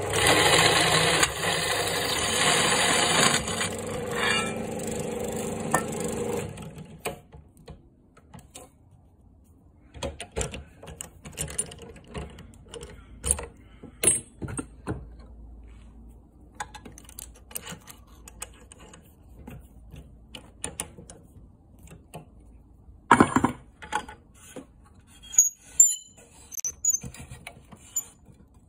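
Drill press running with a step drill bit cutting into a metal enclosure, a screechy cutting noise over a steady motor whine, stopping about six seconds in. Then scattered metallic clicks and clinks as the step bit is swapped for a twist bit in the chuck, with one louder knock about three-quarters of the way through.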